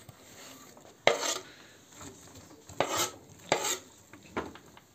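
Sliced onions being scraped off a wooden cutting board into a metal baking tray: about four sharp scrapes and knocks of board and blade against the tray.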